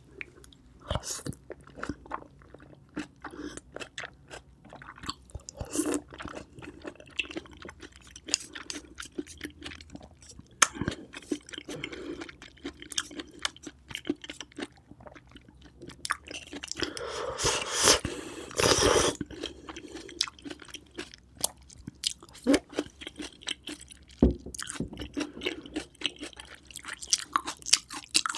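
Close-miked chewing of grilled oyster meat, with wet mouth smacks and many small clicks. A louder, denser wet stretch of about three seconds comes a little past halfway.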